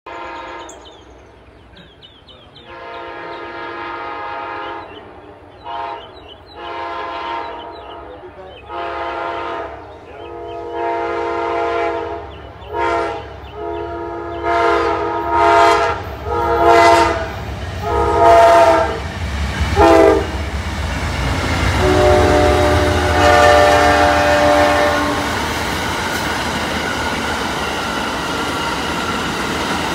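Amtrak Silver Meteor's locomotive air horn sounding a long series of crossing blasts, growing louder as the train approaches. The chord then drops in pitch as the locomotive passes, and the passenger cars roll by with a steady rumble and clack of wheels on rail.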